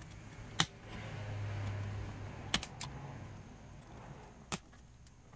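A few sharp hard-plastic clicks and taps, one early, a quick cluster of three midway and one more near the end, as a car radio and its dash trim are handled and pressed into place.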